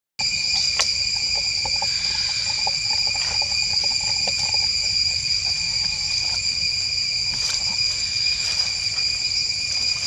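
Steady high-pitched drone of forest insects, holding several even tones without a break, with a quick run of short chirps between about one and four and a half seconds in.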